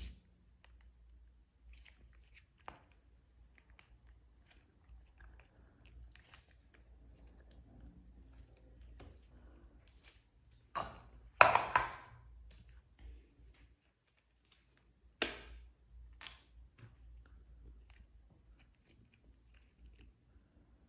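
Blue slime being mixed and kneaded by hand with glitter: scattered small wet clicks and crackles, with a louder cluster of them about halfway through and one sharp pop a few seconds later.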